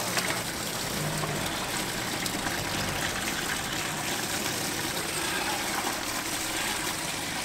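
A steady idling-engine hum with water trickling and splashing as bass are lifted dripping out of a boat's livewell.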